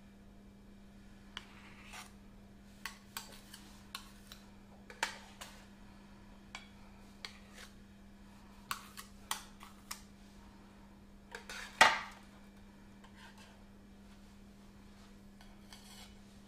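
Metal spatulas clinking, tapping and scraping against a metal baking tray and a serving board in scattered knocks, the loudest about twelve seconds in.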